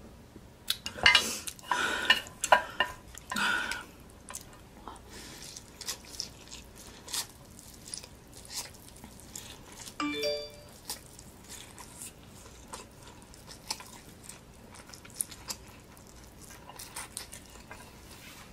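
A person slurping and chewing mouthfuls of instant noodles, with wooden chopsticks clicking against the tray; the loudest slurps come in the first few seconds. A short run of chime-like tones sounds about ten seconds in.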